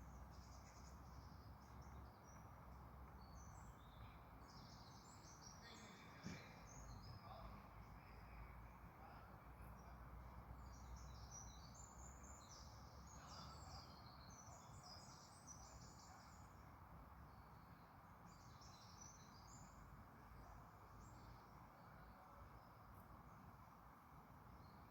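Faint outdoor ambience: scattered high chirps and twitters of small birds over a low, steady background noise.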